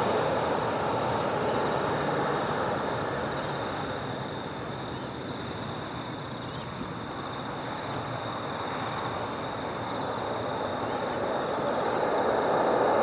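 Jet engine noise from a landing Boeing 777-300ER's GE90 engines: a steady rumble that is loudest as the airliner comes over the threshold, eases to its quietest around touchdown midway through, then grows louder again near the end as the jet rolls out.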